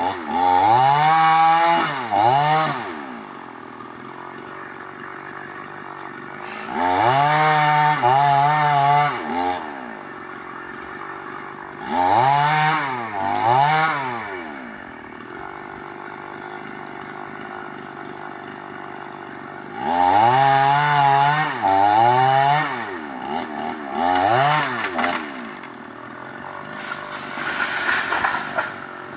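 Small engine revved in short blips, two or three at a time every five to eight seconds, its pitch rising and falling with each blip and dropping back to a low steady running between.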